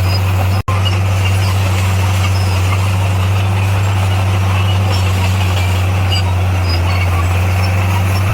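Bulldozer's diesel engine running steadily under load with a deep, even drone, broken by a split-second gap a little over half a second in.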